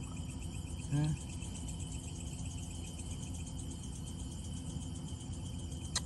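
Crickets chirping in a steady high trill over a low, even background hum, with a single sharp click near the end.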